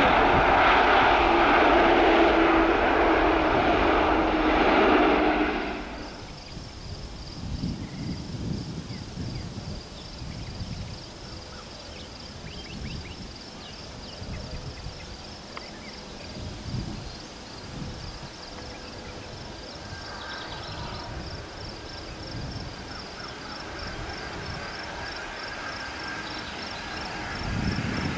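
Airbus A300 freighter's jet engines running loud at takeoff thrust, cutting off suddenly about six seconds in. After that comes a much quieter stretch: another Airbus A300 freighter's engines are heard faintly on approach, with a faint whine from about two-thirds of the way through and a rise in loudness near the end, over irregular low thumps and a steady high trill.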